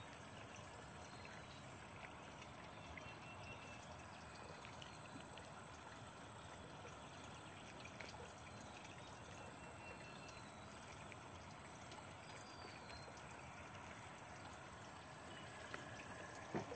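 Faint, steady outdoor background hiss with a thin, continuous high-pitched whine over it.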